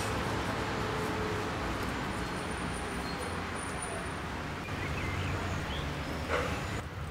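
Steady street traffic noise: a low rumble of passing cars under a constant hiss, with one short bump about six seconds in.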